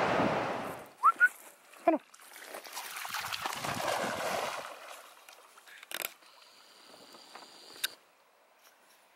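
Steady ATV running noise fades out, then a dog gives a few short, rising whines or yelps, followed by a few seconds of splashing water and a couple of faint clicks.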